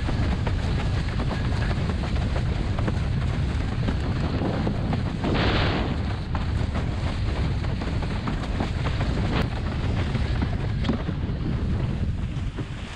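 Wind buffeting the microphone over the rush of water as a slalom windsurf board planes across chop, with frequent short slaps of the hull on the waves. A louder hissing rush comes about five seconds in.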